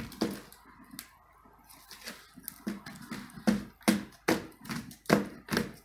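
Wood and coal fire in an open fireplace crackling, with a string of sharp, irregular pops that come thicker and louder in the second half.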